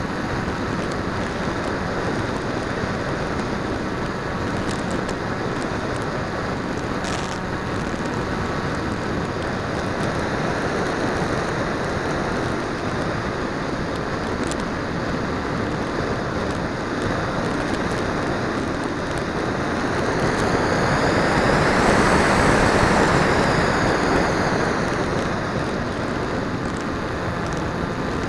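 Airflow rushing over the plane-mounted 808 #16 keychain camera's microphone, mixed with the flying wing's motor and propeller, a steady noisy rush in flight. About twenty seconds in it grows louder for a few seconds, with a high whine that rises and then falls.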